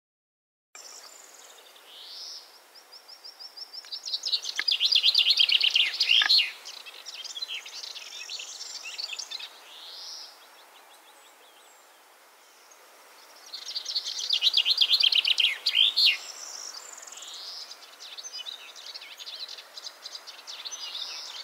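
Common chaffinch singing: two loud song phrases about nine seconds apart, each a fast trill of about two and a half seconds ending in a quick downward sweep. Fainter calls from other birds come in between.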